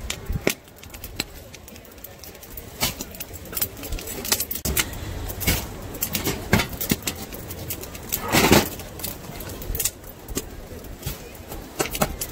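Mini chestnuts clicking and clattering as they are fire-roasted and handled: irregular sharp clicks, with one louder clatter about eight and a half seconds in.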